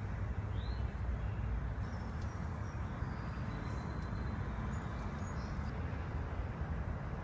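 Steady low rumbling background noise, with a few faint, short bird chirps above it in the first few seconds.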